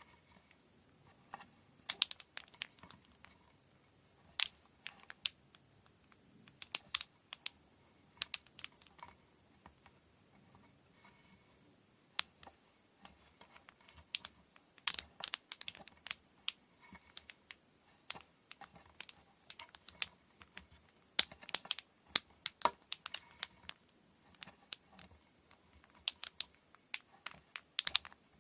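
Irregular light clicks and taps, some in quick runs, from handling kumihimo braiding tools and cotton thread during preparation.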